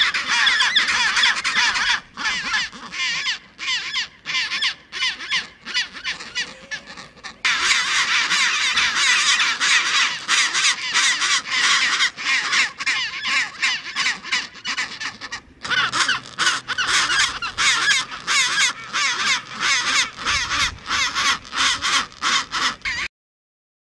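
Chorus of chinstrap penguins in a breeding colony, many harsh, loud calls overlapping at once, with adults giving display calls, bills raised skyward. The chorus drops off sharply about two seconds in, swells back after about seven seconds, and cuts off suddenly just before the end.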